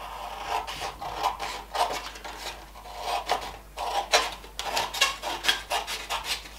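Small scissors cutting through a sheet of A4 paper in a run of repeated snips, several a second.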